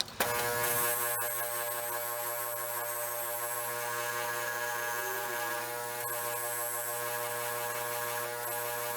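Electric motor of a wire or fiber polishing wheel running steadily with no load, a constant buzzing hum that starts abruptly just after the beginning.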